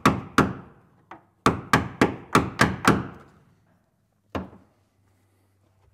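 Hammer striking a hand scraper to chip frozen, dry-ice-hardened Dynamat (tar-based sound deadener) off a car's steel floor pan. There is one strike, then a quick run of about seven, then a last one about four seconds in, each with a short ringing tail.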